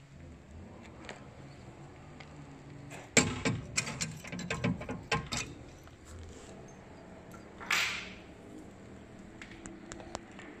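The small steel key safe in a gun cabinet's base being shut and latched: a sharp metal clack, then a quick run of clicks and clatters lasting about two seconds. A short rustle follows a few seconds later.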